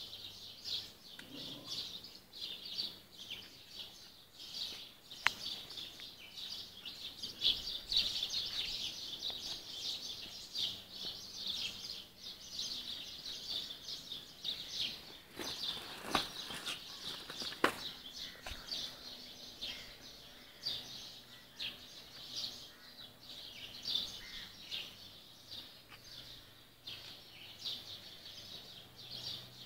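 Many small birds chirping and twittering together in a dense, unbroken chorus, with a few sharp clicks in the middle.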